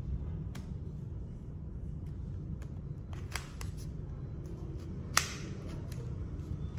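Light clicks from a five-digit combination cable lock being handled, with one sharp click about five seconds in as the lock opens and the cable end comes free of the lock body. A steady low hum runs underneath.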